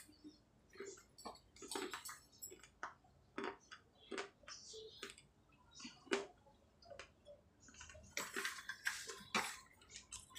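Faint, irregular crunching of sun-dried clay being bitten and chewed, with small clay pots knocking against each other in a plastic basket; the crunches come thickest near the end.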